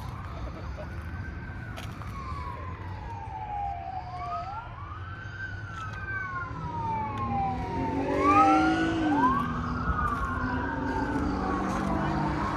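Emergency vehicle siren wailing in slow sweeps, each rising quickly and falling slowly, about every four seconds. A second, lower tone joins about halfway through as the sound grows louder.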